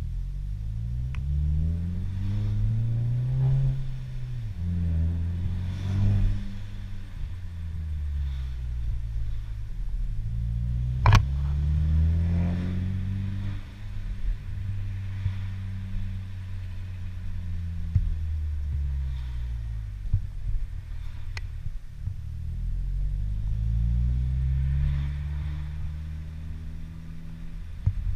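Inside the cabin, a 2019 Volkswagen Jetta GLI's turbocharged 2.0-litre four-cylinder breathes through a newly fitted exhaust. It accelerates through the gears, rising in pitch and dropping at each change, then eases off. There is one sharp crack about eleven seconds in.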